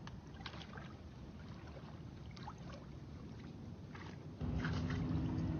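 Small splashes and water sloshing in shallow floodwater, with scattered little clicks. About four seconds in, a louder, steady low droning hum starts suddenly and holds.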